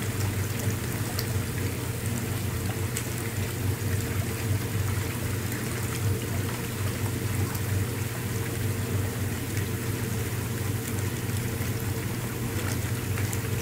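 Whirlpool bath running: the jets churn and bubble the water over the pump motor's steady low hum.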